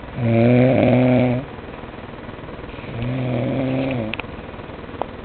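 Snoring: two long, droning snores a little over a second each, with a breathy pause between them, the second quieter than the first.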